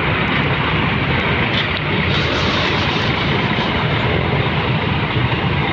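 Mercedes-Benz O500RSD 2445 double-decker coach's rear diesel engine running steadily as the coach manoeuvres slowly.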